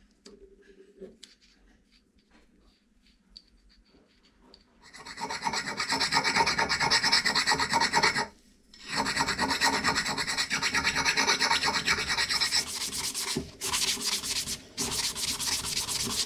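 A few faint clicks, then about five seconds in, steel parts of an old hydraulic jack being scrubbed with an abrasive to clean them up. It goes in steady, grainy runs with three short breaks.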